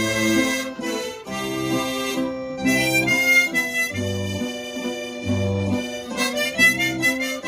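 Harmonica playing a melody in sustained chords, with guitar accompaniment underneath.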